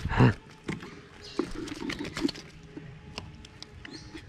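Handling sounds at a small plastic bucket with a lid: a loud thump right at the start, then scattered light clicks and knocks.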